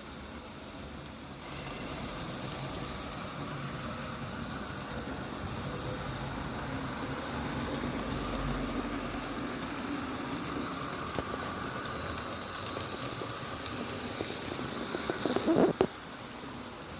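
OO-gauge model diesel locomotive with a ring-field motor running a train around the track: a steady motor whirr and wheel rumble that grows a little louder toward the middle. Near the end comes a quick rattle of clicks, then the sound drops away.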